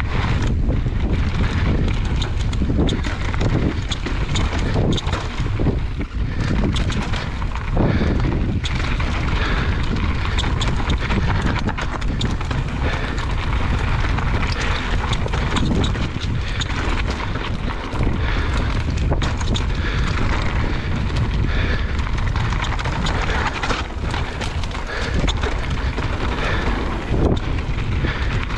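Mountain bike riding down a trail: wind buffeting the microphone as a steady rumble, with the tyres rolling over the trail surface and the bike rattling and knocking over bumps throughout.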